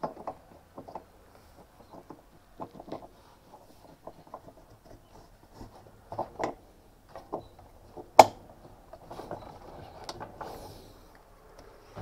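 Irregular light clicks and knocks of washing-machine parts being handled as the top plate is set down on the drum of a top-loader, with one sharp click about eight seconds in, the loudest.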